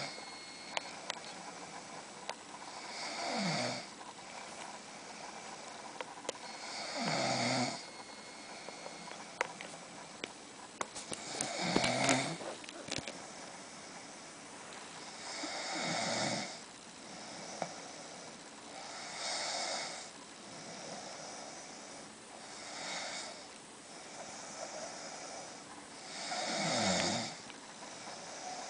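A sleeping person snoring, one snore about every four seconds, several of them sliding down in pitch.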